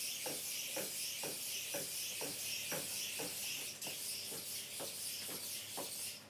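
HEBI Daisy modular hexapod robot walking on a tiled floor: a steady high hiss that swells in time with its gait, with soft regular knocks about twice a second as its feet step.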